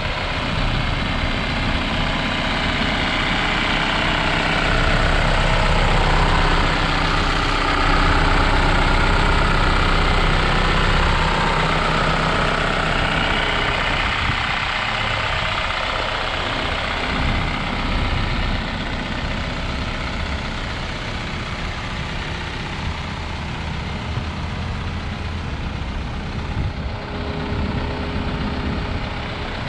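2015 Isuzu NPR HD's four-cylinder turbo-diesel engine idling steadily, with the cab tilted forward so the engine is uncovered.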